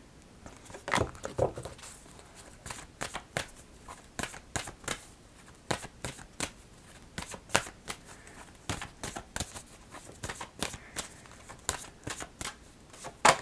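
Oracle cards being shuffled by hand: a run of irregular crisp snaps and flicks of card stock, with one louder snap near the end.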